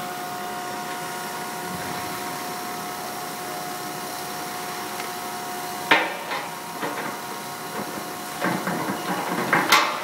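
Metal clinking against brass fittings on a stainless steel tank: a sharp clink about six seconds in, then lighter clicks and a run of clinks and scrapes near the end as a metal rod is worked into a fitting. Before that, only a steady machine hum with a faint whine.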